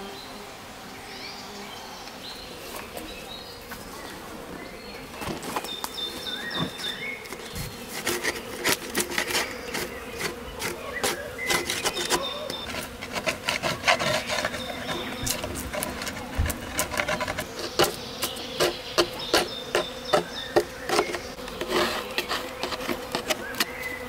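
Honeybees buzzing steadily around exposed comb in an opened wooden box hive. From about five seconds in, a quick, uneven run of scraping and clicking against the wood joins the buzzing.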